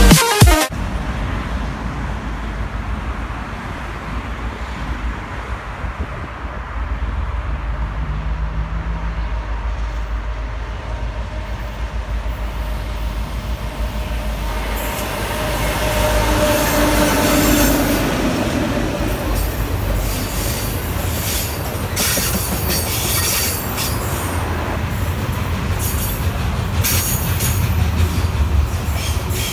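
Diesel-hauled freight trains passing, the locomotives running under load with a steady rumble. In the second half a long rake of container wagons rolls by, its wheels clattering in a run of quick clicks over the rail joints.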